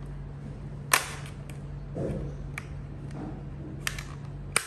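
Sharp clicks and taps of plastic parts as a scale RC helicopter's body and nose section are handled by hand. The loudest click comes about a second in, followed by a few lighter ones, over a steady low hum.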